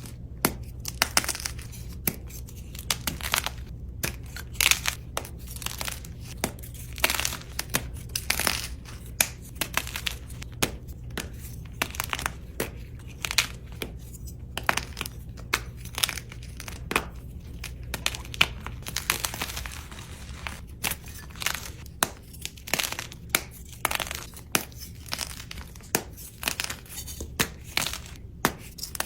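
Dyed gym chalk crunching and crumbling as it is crushed: a run of irregular sharp crunches with dusty crumbling between them, over a steady low hum.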